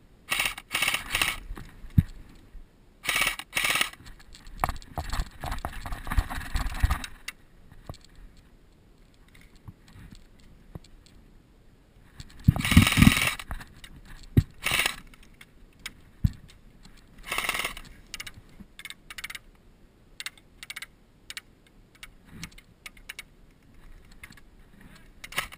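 Irregular rustling, rattling and scraping from an airsoft player's gear as he moves, with scattered short sharp clicks and knocks; the loudest burst comes about halfway through.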